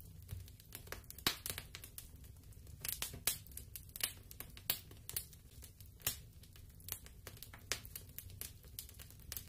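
Faint, sparse, irregular clicks and crackles, a few every second, over a faint low rumble.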